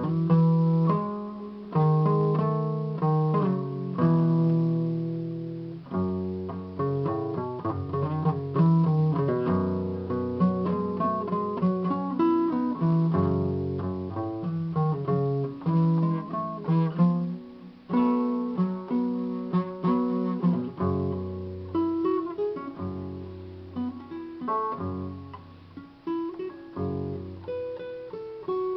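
Guitar music: a steady run of plucked notes over changing bass notes.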